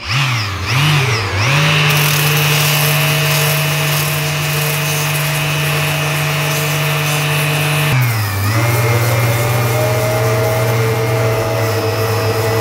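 Hand-held rotary sander running and sanding a cured carbon-fibre laminate patch on a bike frame flat, its motor tone over the hiss of the abrasive. The pitch wavers as it spins up at the start, dips about eight seconds in, then climbs back and settles a little lower.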